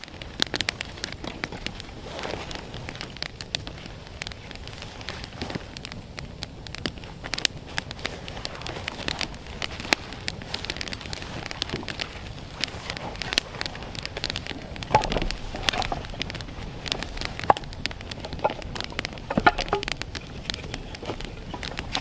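Campfire crackling, with many irregular sharp pops.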